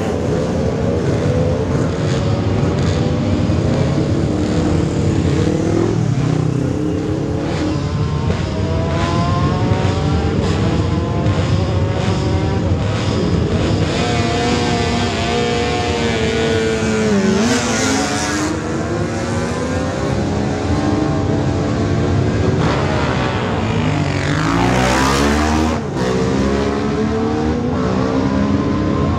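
Several classic racing motorcycle engines running and being revved together while waiting to start. Twice, about halfway through and again near the end, one bike revs hard and pulls away, its engine note rising.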